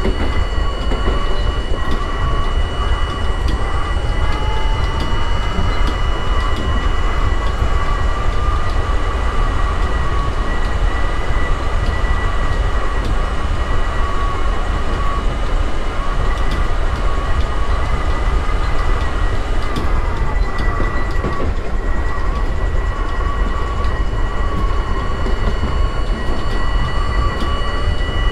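R32 subway train running on the rails, with a steady rumble and wheel noise. Over it comes a motor whine that rises in pitch through the first several seconds, holds steady, then drops away about twenty seconds in.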